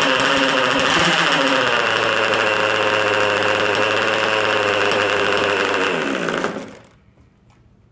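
K&B 11cc (0.67 cubic inch) nitro glow outboard on an RC boat, running on 50% nitro fuel, loud and steady, then winding down and stopping about six and a half seconds in.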